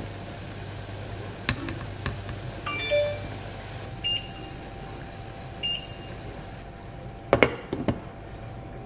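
Glass saucepan lid with a steel rim clattering down onto an enamel saucepan near the end, a quick run of sharp knocks. Before that, a few short high beeps about three, four and five and a half seconds in, and a couple of light knocks.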